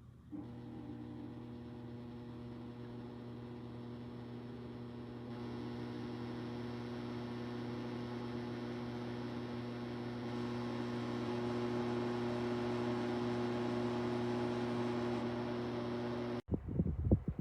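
Dreo Cruiser Pro tower fan running: a steady motor hum with an airflow hiss that gets louder in steps. About a second before the end it cuts off abruptly and gives way to wind buffeting the microphone.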